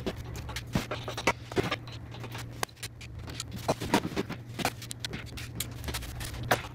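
Irregular metallic clicks, clanks and scrapes from an engine hoist lifting an engine and transmission out of a car's engine bay, over a steady low hum.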